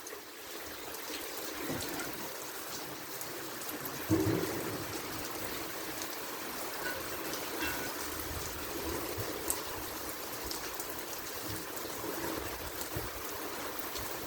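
Heavy rain falling, with water trickling and running off in a steady hiss scattered with small drip ticks. A brief thump about four seconds in.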